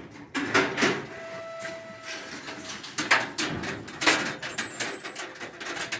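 Goats' hooves knocking and clattering on a metal milking stand in a corrugated-iron shed: a string of sharp knocks, loudest about half a second in, about three seconds in and about four seconds in. A steady held tone sounds for under two seconds starting about a second in.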